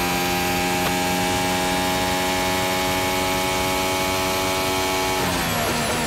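McLaren-Honda Formula 1 car's turbocharged V6 engine, heard onboard, holds a steady high pitch at full throttle along the straight. About five seconds in, the pitch drops in quick steps as the gearbox begins a rapid run of downshifts under braking for the first corner.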